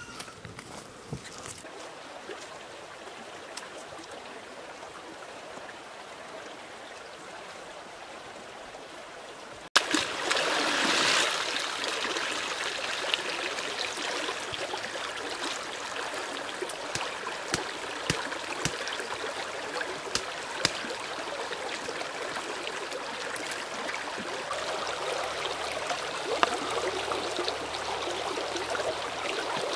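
Shallow stream running over stones, with water pouring and splashing as a wicker basket is dipped and rinsed in it. The water comes in suddenly louder about ten seconds in, after a fainter stretch at the start.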